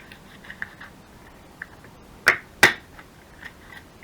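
Paper and craft tools handled on a work table: faint rustling and small ticks, then two sharp knocks about a third of a second apart, a little past halfway.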